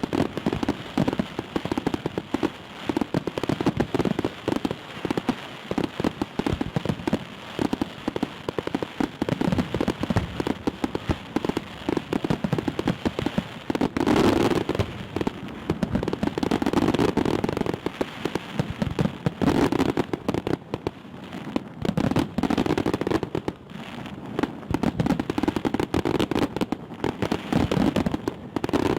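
Fireworks salute: dense, continuous crackling and popping, with heavier bursts about halfway through and again several times toward the end.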